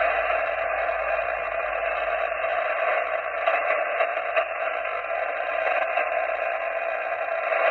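Steady hiss of band noise from an amateur radio transceiver's receiver, held to the narrow voice passband of a single-sideband signal, with no station coming through.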